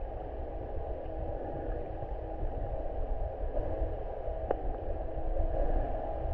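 Muffled underwater noise picked up by a submerged GoPro: a low rumble of water moving around the camera, with a faint steady hum and one sharp click about four and a half seconds in.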